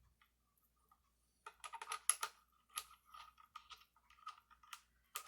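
A run of small, quiet metal clicks and ticks starting about a second and a half in: a chuck key turning in the rotary attachment's chuck to move its jaws.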